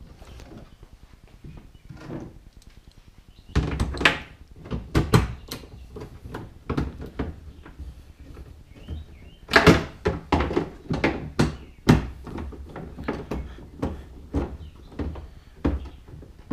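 Irregular sharp clicks and knocks of metal on the pickup tailgate's steel panel as the new handle's two retaining nuts are fitted, in clusters about four seconds in and again near the middle.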